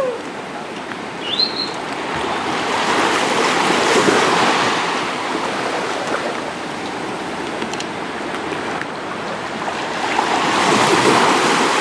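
Waves washing on a shore, a steady rush that swells twice. There is a short high chirp about a second and a half in.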